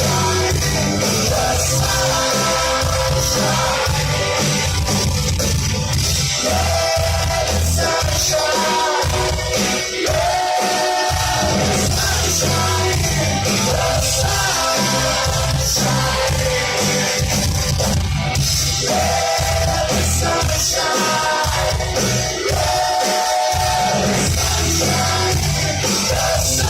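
Live rock band performing a worship song: a singer's voice carries the melody over a loud, steady backing of bass and drums.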